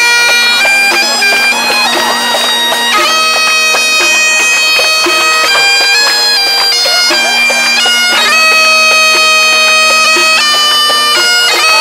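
Great Highland bagpipes playing a tune: a steady drone under the chanter's melody, which steps between held notes with quick grace notes at each change.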